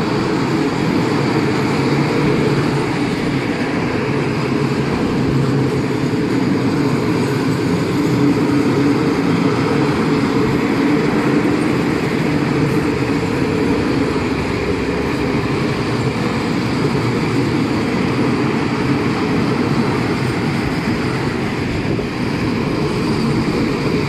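Freight train of open-top gondola wagons rolling past at close range: a steady, loud rumble of steel wheels on rail.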